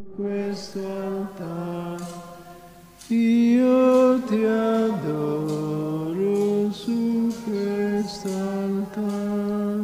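A slow devotional hymn sung in church, the voices holding long notes that change in steps.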